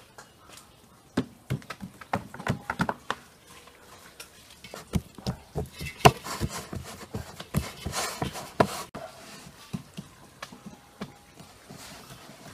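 Hands patting and pressing a soft walnut dough flat into a metal baking pan: a run of irregular slaps and knocks, thickest in the first two thirds and thinning out near the end.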